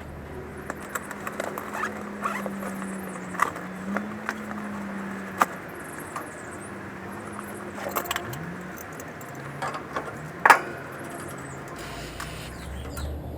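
Irregular light metallic clicks and rattles of tools and fittings being handled, over a faint wavering hum, with a sharp click about five seconds in and the loudest one about ten and a half seconds in.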